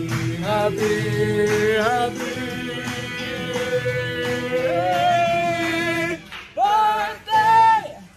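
Singing over music: a voice holding long notes that slide between pitches over a steady backing tone, then two short, loud, high sung notes near the end.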